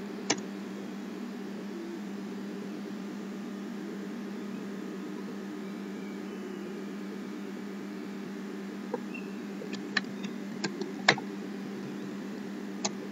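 Computer mouse and keyboard clicks: one click just after the start, then a quick run of about eight clicks and keystrokes from about nine seconds in as a password is typed, over a steady low electrical hum.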